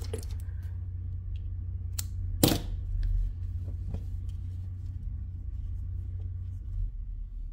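Quiet handling noise of yarn and crocheted pieces being moved about on a table, with one louder rub or bump about two and a half seconds in and a few faint ticks, over a steady low hum.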